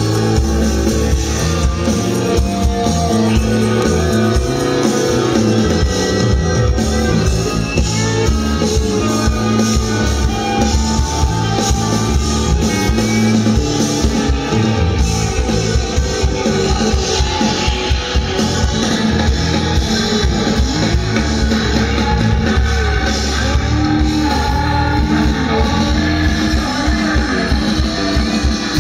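Live rock band playing an instrumental passage, with electric guitar over drums and keyboards. It is loud and continuous, picked up by a camera microphone out in the audience.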